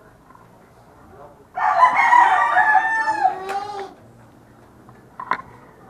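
A rooster crowing once, about a second and a half in, a long call of about two seconds. There is a short click near the end.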